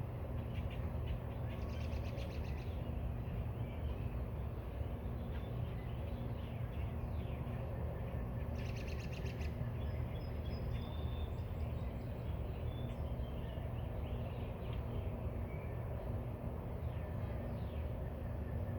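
Small birds chirping, with two rapid trills about a second and a half in and near the middle, over a steady low rumble.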